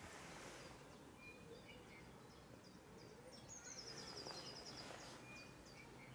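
Faint small songbirds chirping in short high notes, with a rapid trill lasting about a second a little past the middle, over a quiet outdoor background.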